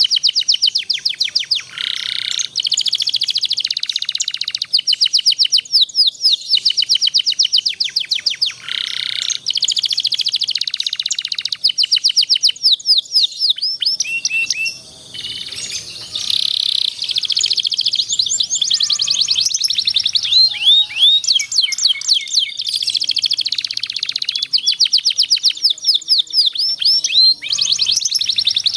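Domestic canary singing long rolling trills: rapid strings of repeated high notes that switch to a new trill type every second or two, mixed with sweeping chirps, with a short break about halfway through.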